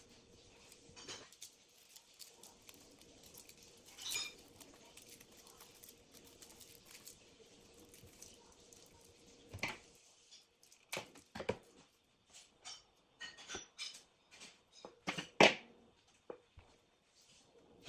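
Scattered small clicks and taps of thin wires being handled and twisted together by hand on a tabletop, few at first and more frequent in the second half, over a faint steady hum.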